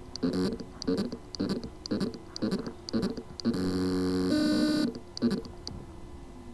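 A WD Scorpio Blue 2.5-inch laptop hard drive with loose spindle-motor contacts on its circuit board, trying to spin: a rhythmic pulsing about twice a second, broken by a held tone of over a second about halfway through. The motor spins but cannot reach full speed because of the loose motor contacts.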